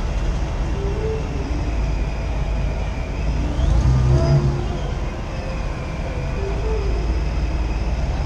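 Jeep Wrangler Rubicon driving slowly in city traffic: steady low engine and road rumble, swelling briefly about four seconds in, with faint street sounds over it.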